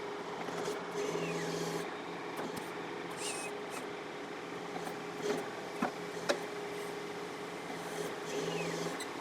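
John Deere 4052R compact tractor's three-cylinder diesel engine running steadily, with a few sharp clicks about halfway through and a few brief high chirps.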